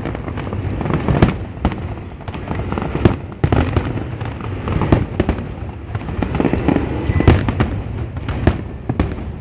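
Aerial fireworks display: shells bursting overhead in an irregular, rapid string of booms and sharp bangs over a continuous rumble, the loudest bang about seven seconds in.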